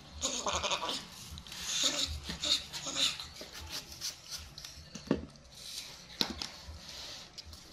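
Kitchen knife paring the skin off a crisp red apple: uneven crisp scraping strokes, busiest in the first few seconds, with two sharp clicks later on.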